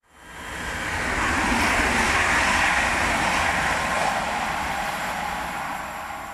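Silver streamlined electric train passing through the station at speed. The noise of wheels on rail and rushing air grows over the first second, is loudest about two to three seconds in, then fades as the train draws away.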